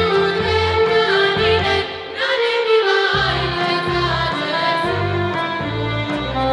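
A group of women singing a Serbian folk song from Upper Pčinja in sustained, bending lines, over an instrumental accompaniment with a rhythmic pulse of low notes. The low accompaniment drops out about two seconds in and comes back about a second later.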